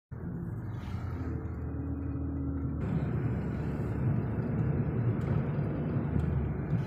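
Steady low rumble of engine and road noise heard from inside a moving car. The noise shifts abruptly about three seconds in.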